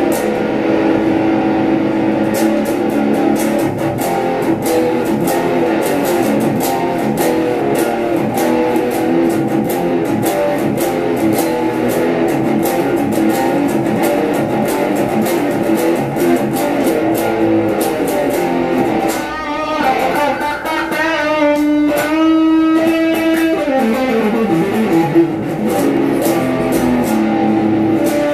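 Clear acrylic-bodied Gibson SG-style electric guitar playing fast picked riffs and lead lines. About two-thirds of the way through comes a quick run up the neck, then a slide back down.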